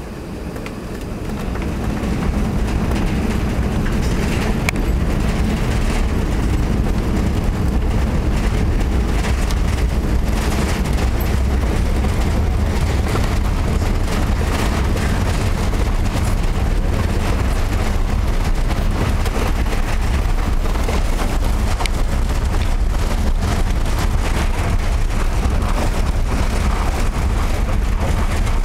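Airbus A380's four Engine Alliance GP7200 turbofans heard from inside the cabin, spooling up to takeoff thrust over the first two seconds and then running at a steady loud roar through the takeoff roll, with a deep rumble and small knocks from the wheels on the runway.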